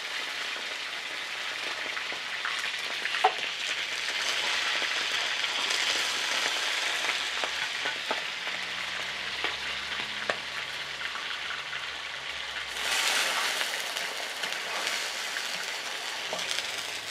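Milk-soaked beef liver steaks sizzling in hot oil on a comal griddle, a steady hiss with a few sharp clicks. The sizzle swells louder about thirteen seconds in.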